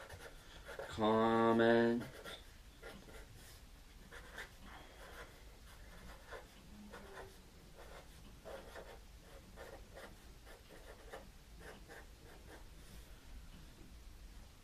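Marker writing on a cardboard box: faint, irregular strokes of the tip scratching across the cardboard.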